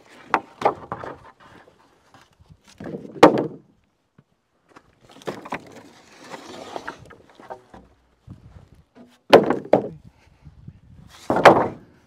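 Wooden sawmill offcut slabs, mostly Douglas fir, knocking and clattering against each other as they are pulled from a pile and set down. A loud wooden knock comes about three seconds in, with boards scraping over each other a few seconds later and two more heavy thumps near the end.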